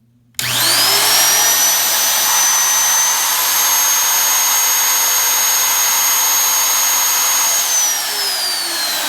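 DeWalt DW660 cut-out tool motor, used as a CNC router, switched on: its whine climbs quickly to a steady, extremely loud high pitch, then it is switched off and the whine falls as the motor spins down near the end.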